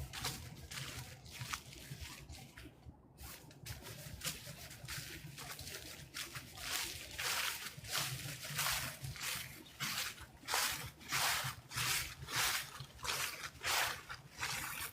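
Footsteps crunching through dry fallen leaves at a steady walking pace, about one and a half steps a second, growing louder about halfway through.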